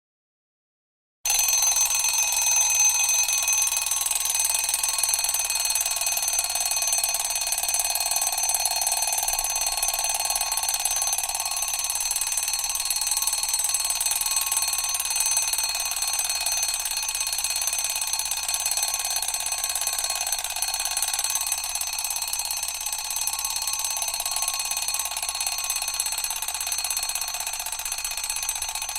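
Mechanical alarm clock's bell ringing without a break, starting about a second in.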